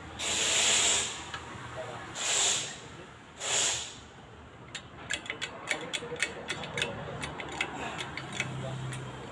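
Three short hissing sprays, then a hand ratchet wrench clicking quickly and unevenly for several seconds as a suspension bolt is worked.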